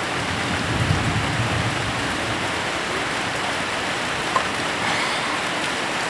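Heavy rain falling steadily and loudly, with one short sharp click a little past four seconds in.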